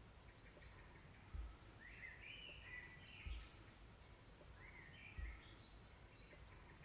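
Faint woodland ambience: small birds chirping in short phrases over a soft hiss, with three soft low thuds about two seconds apart.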